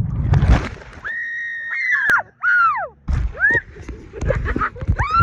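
A woman's high scream held for about a second, bending down at the end, then shorter falling shrieks. Wind buffets the microphone at the start.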